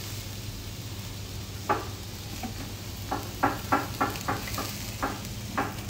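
Steak, kofta and sucuk sizzling on a charcoal grill, with a quick run of short taps and clicks a little past halfway.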